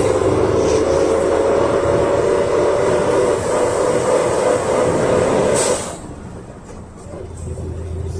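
PAZ-32054 bus's ZMZ-5234 V8 engine running on LPG, heard from inside the passenger cabin while under way: a loud steady whine over a low rumble, rising slightly in pitch. About six seconds in it drops off sharply after a brief hiss, then a lower engine rumble builds back up.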